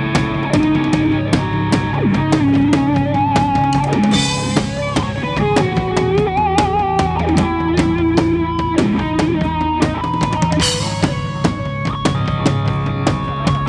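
Live band playing: a drum kit keeps a steady beat with bass drum and snare under guitar and held, wavering melody notes, with a cymbal crash about four seconds in and another about three quarters of the way through.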